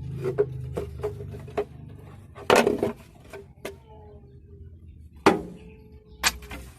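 Metal tools and engine parts clinking and knocking, a dozen or so sharp clacks with three louder clanks that ring briefly, over a steady low hum.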